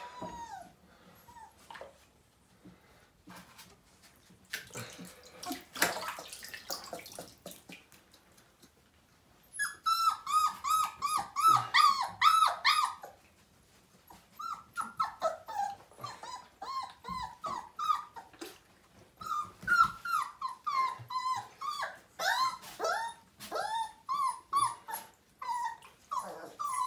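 Five-week-old Siberian husky puppies crying in a bathtub: after faint clicks and scuffs, about ten seconds in, rapid runs of short, high whimpers start, each falling in pitch, about three a second.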